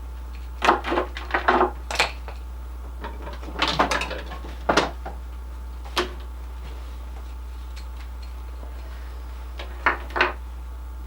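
Gear being handled: irregular knocks and clatters of hard objects, in several short clusters, over a steady low electrical hum.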